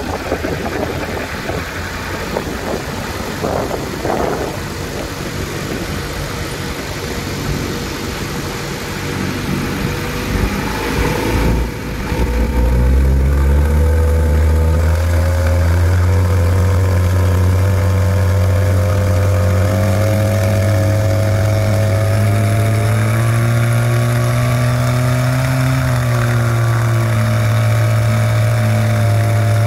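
Viking Honda 130 four-cylinder aircraft engine turning its propeller on a ground run-up. It runs at a low setting at first, then about twelve seconds in the throttle comes up and the engine climbs to a louder, steady tone that holds to the end. This is a run-up on a freshly replaced flex plate, and the test is judged good.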